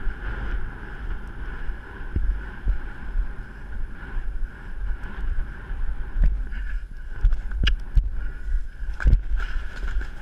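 Wind buffeting the microphone in a loud, gusting rumble, with a few scattered sharp knocks.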